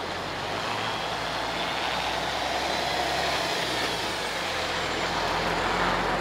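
MAN tractor unit's diesel engine running as the truck pulls away from a standstill and drives past close by, growing louder toward the end.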